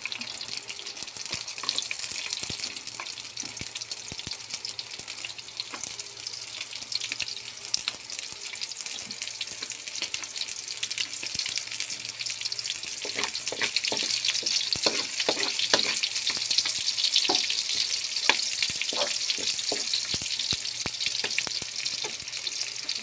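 Chopped onion and garlic sizzling in hot oil in a wok, a steady high hiss with crackling. From a little past halfway, a wooden spatula scrapes and knocks against the wok as the pieces are stirred.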